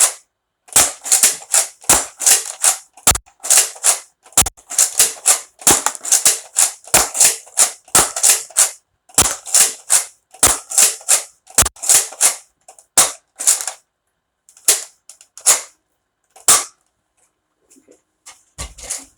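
Toy Nerf blaster firing foam darts over and over, a sharp pop about two to three times a second. After about thirteen seconds it thins to a few scattered shots.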